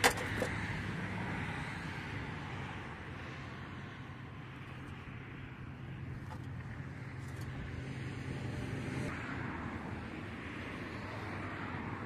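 A knife splitting the rind of a whole watermelon, heard as one sharp crack at the start, followed by a steady low hum and outdoor background noise.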